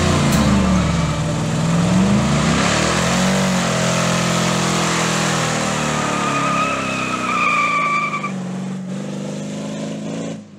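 The 5.3-litre LS V8 of a 1965 Chevrolet C10, running through chrome headers, revs up and down during a smoky burnout. A dense hiss of the spinning tyres sits under the engine, and a high tyre squeal stands out about six and a half seconds in. The sound thins out over the last couple of seconds.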